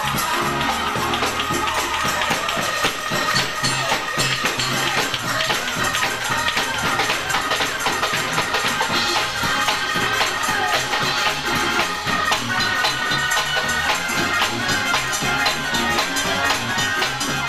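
Live up-tempo gospel praise-break music: drum kit and tambourine driving a fast, steady beat, with hand clapping and sustained pitched instrument notes over a repeating bass line.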